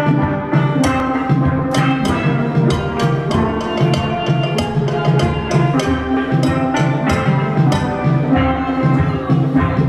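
A steel band of children playing steel pans together: many struck, ringing notes in a tune over a repeating low line, with a steady beat.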